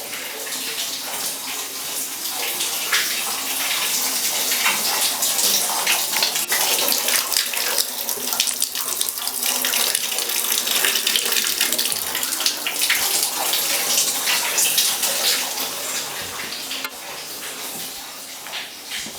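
Water running from a tap, a steady splashing stream that grows louder a couple of seconds in and drops away near the end.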